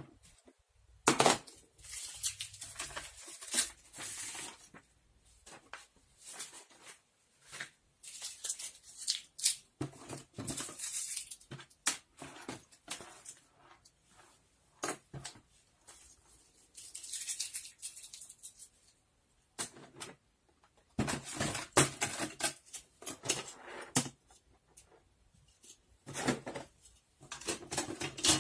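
Small household objects being handled by hand: an irregular run of clicks, taps, light clinks and short rustles with brief pauses between them.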